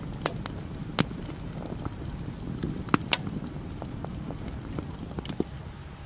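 Wood fire burning in an earth tandoor pit: irregular sharp crackles and snaps from the coals over a steady low rumble.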